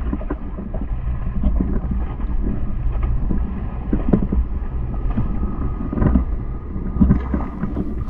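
Small waves sloshing and splashing against a camera at the sea surface, heard muffled and dull, with a steady low rumble underneath and irregular small splashes.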